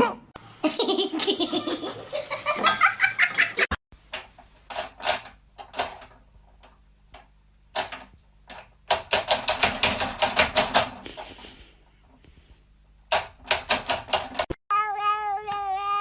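People laughing in bursts of quick, breathy pulses, with pauses between. Near the end, after a sudden cut, a cat starts a long, wavering meow.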